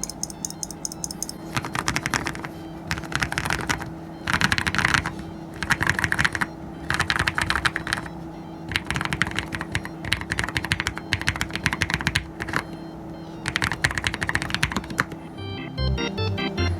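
Typing on a MelGeek O2 low-profile mechanical keyboard: quick runs of keystrokes about a second long, separated by short pauses. Quiet background music runs underneath.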